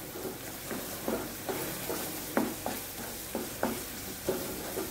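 Chopped onions, green chilli and ginger-garlic paste sizzling in oil in a non-stick kadai, with a spatula scraping and stirring them in short strokes about twice a second, while the ginger-garlic paste is fried until its raw smell goes.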